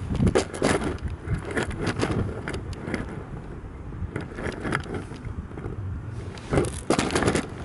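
Steady wind rumble on the microphone, with irregular clicks and rattles of shingle pebbles knocking together, heaviest in the first second and again about six and a half seconds in.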